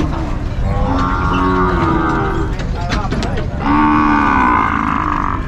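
Cattle mooing: two long calls, one about a second in and a louder one near the end.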